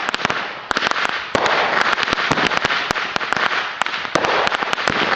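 Consumer fireworks going off: a rapid, irregular string of sharp cracks and pops over a continuous hiss.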